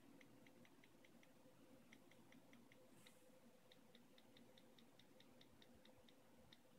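Faint keyboard click sounds from an iPad Air 2's on-screen keyboard, in several runs of quick, evenly spaced ticks at about five a second, over a faint steady hum.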